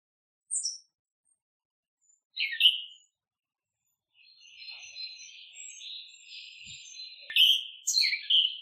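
Wild songbirds calling. Single sharp chirps come about half a second in and again near two and a half seconds, then a stretch of rapid twittering song, ending in a few loud chirps near the end.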